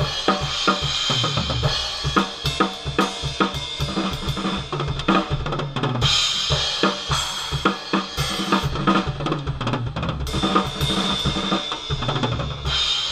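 Drum kit played as a continuous groove, with kick and snare hits under the sustained wash of Arborea Viking series cymbals.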